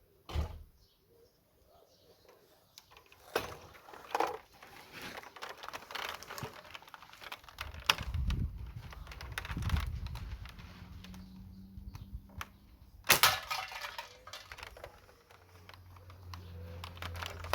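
Homemade catapult rifle being handled, loaded and shot: scattered clicks and knocks, a low rumbling stretch in the middle, and one loud sharp crack about thirteen seconds in.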